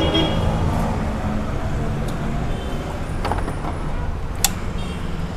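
Vehicle engine running steadily, a low rumble, with a sharp click about four and a half seconds in.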